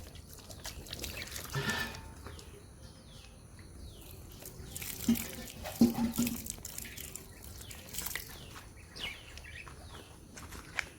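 Water being poured onto potting soil in a grow bag to soak it, with birds giving many short, quick, falling chirps.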